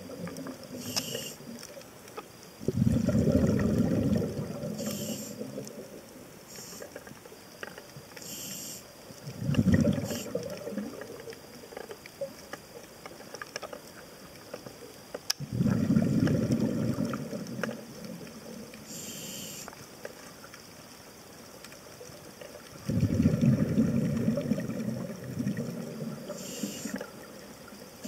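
Scuba diver breathing through a regulator underwater: short hisses of the inhale, then long low rumbles of exhaled bubbles, about four breaths.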